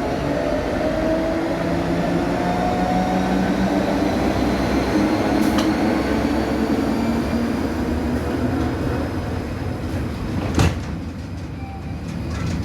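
Train passing close by: a steady rumble of wheels on the rails with a faint hum, and a sharp knock about ten and a half seconds in.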